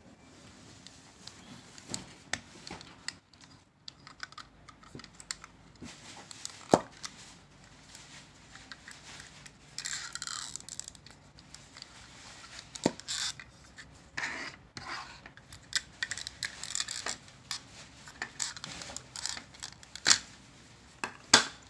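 Plastic GoPro Hero 5 Black dive housing and camera being handled and fitted together: irregular clicks, scrapes and rubbing of hard plastic on plastic, with a few sharper snaps as parts of the case are pressed into place.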